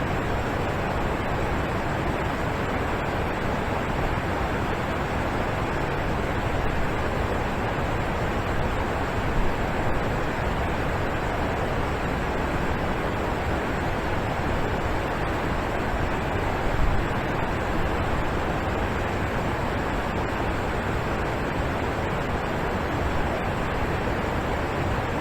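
Alpine waterfall: water falling and splashing in a steady, unbroken rush.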